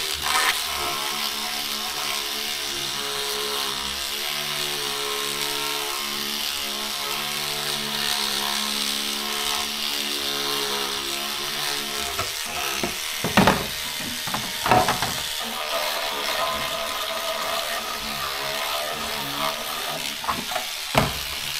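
Handheld electric cleaning brush running, its small motor humming steadily as it scrubs soapy textured plastic on a typewriter cover; the motor's pitch shifts about halfway through, followed by a few sharp knocks.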